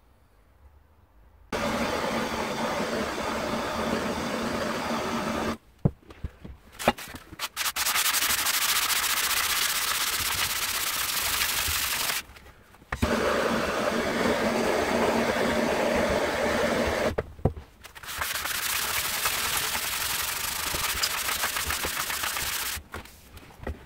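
Handheld gas blowtorch scorching a wooden strip for a burnt finish: four bursts of steady hiss, each about four seconds long, that cut off sharply between them, with a few clicks in the gaps.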